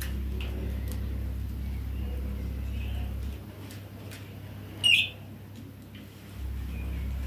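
Young Alexandrine parakeets and a budgerigar giving a few faint chirps, with one short, louder, high chirp about five seconds in. A low steady hum runs underneath and cuts out for about three seconds in the middle.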